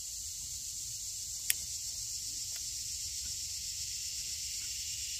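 Steady high-pitched hiss of an evening insect chorus, with one sharp click about a second and a half in.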